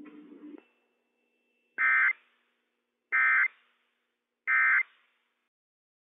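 Three short bursts of NOAA Weather Radio Emergency Alert System data tones, the SAME end-of-message code that closes the broadcast, each about a third of a second long and roughly 1.3 s apart, the first coming about two seconds in.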